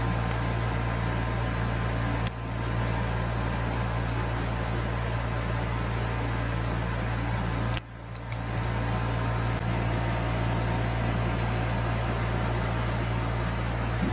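Steady low mechanical hum with a hiss over it. It drops out sharply for a moment about eight seconds in, then comes back.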